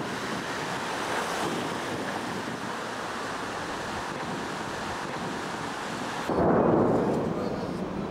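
Wind buffeting the microphone beside open water, a steady rushing noise. About six seconds in it cuts to louder street noise that swells and then fades.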